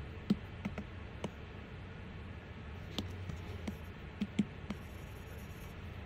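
Apple Pencil tips tapping on an iPad's glass screen: about ten sharp, irregular clicks, with a low steady hum underneath.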